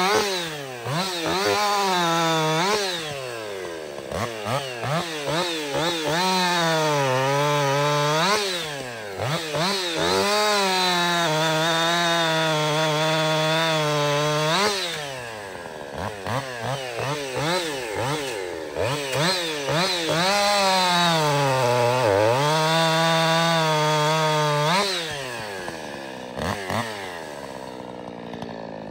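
Woods-ported Jonsered 2156 two-stroke chainsaw cutting firewood. It is held at high revs through cuts of a few seconds each, with the throttle dropping and blipping between cuts, and it settles to a lower idle near the end.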